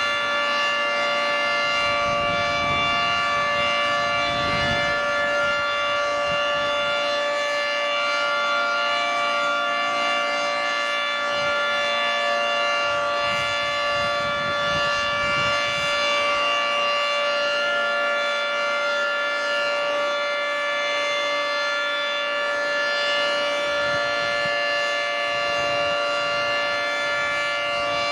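Federal Signal 3T22 three-tone tornado siren sounding its steady Alert signal at full pitch: a loud, unchanging chord of several tones, its level wavering slightly as the rotating head turns.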